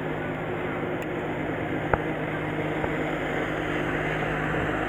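An engine idling steadily with an even, low hum, heard across the harbour. There is a single click about two seconds in.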